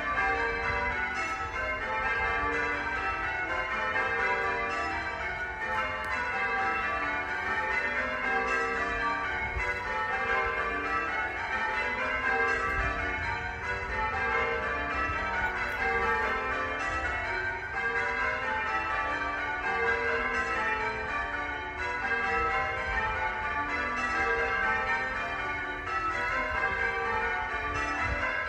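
A ring of church bells pealing continuously, several bells struck one after another in quick, repeating cascades.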